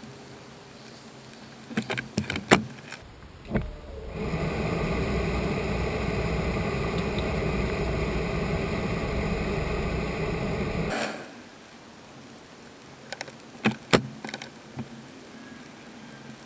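A few clicks and knocks, then a loud, steady mechanical whirr from a motor that starts about four seconds in, runs for about seven seconds and cuts off suddenly, followed by more clicks.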